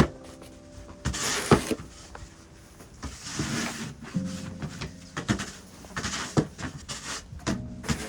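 Snow shovel scraping and scooping snow: a series of uneven scrapes and knocks about a second apart, with soft background music faintly under it.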